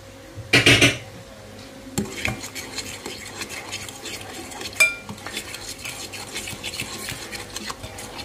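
Metal fork beating a thick garlic-and-sunflower-oil emulsion (mujdei) in a cut-glass bowl, starting about two seconds in: quick, continuous clicking and scraping of the fork against the glass. Near the middle there is one sharper clink with a brief ring.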